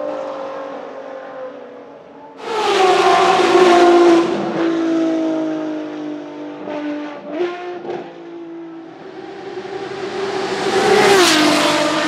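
Ferrari XX-programme track cars' V12 engines revving hard on a wet track. A loud burst of revs comes in about two and a half seconds in and falls away, there are a couple of quick throttle blips around the middle, and revs build again near the end, peak and drop.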